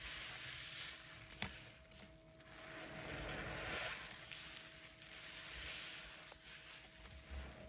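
Foam-soaked sponges squeezed by hand in a basin of thick cleaner suds: wet squishing and fizzing of bubbles that swells and fades with each squeeze, with one sharp click about a second and a half in.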